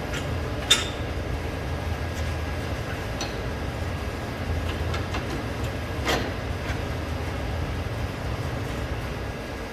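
Workshop noise: a steady low rumble with a few sharp metal clinks, the loudest about a second in and another about six seconds in.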